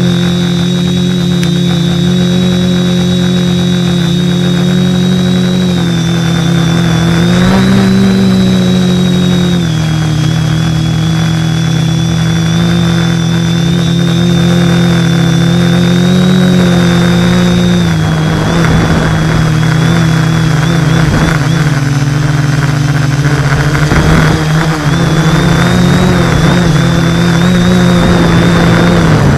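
Model aircraft's motor and propeller running steadily, heard up close from the onboard camera with wind noise. The hum steps up and down in pitch a little several times as the throttle changes.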